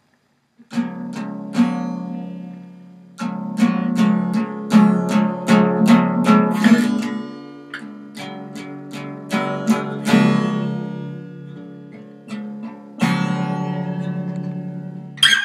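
Acoustic guitar playing an improvised intro, chords strummed and left to ring between strokes, starting about a second in.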